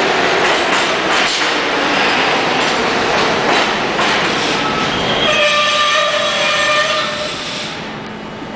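New York City subway train pulling into the station: wheels rumbling and clattering over the rails, then a steady high squeal for about two seconds as it slows nearly to a stop, the noise easing off near the end.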